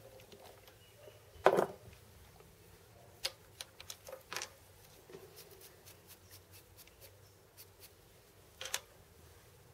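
Metal knocks and clicks from releasing a small lathe's three-jaw chuck with its key and handling the turned metal pulley blank: one sharp knock about a second and a half in, a cluster of lighter clicks around three to four and a half seconds, and another click near the end.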